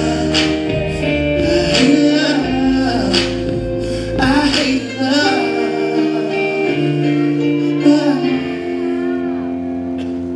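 Dance music: a song with singing over held chords. The voice stops near the end and the chords fade away.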